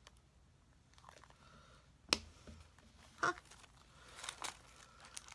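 Small handling noises of craft supplies: a sharp click about two seconds in and another short tap about a second later, then light rustling and crinkling of paper and fabric packaging near the end.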